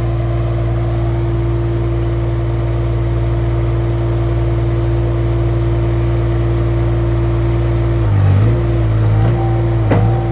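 Mini skid steer's engine running steadily at raised throttle, then dipping briefly in pitch several times from about eight seconds in as it takes load. A sharp knock comes near the end.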